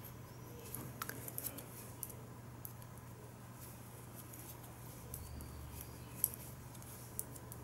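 Metal knitting needles clicking faintly against each other as stitches are knit, in small irregular ticks, over a low steady hum.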